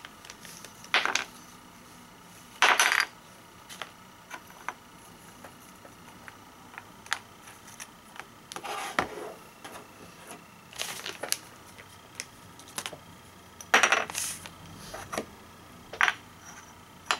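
Small craft-kit parts, thin wooden strips and ring magnets, set down one by one on a tabletop: scattered light clacks and knocks at uneven intervals, with a few short scraping rustles.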